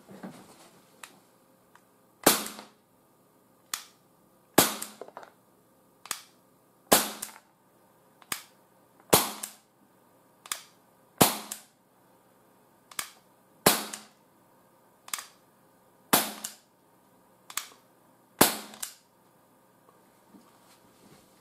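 Umarex CPS 4.5 mm CO2 air pistol firing eight sharp shots, one about every two and a half seconds, each with a short ringing tail. A softer click falls between each pair of shots.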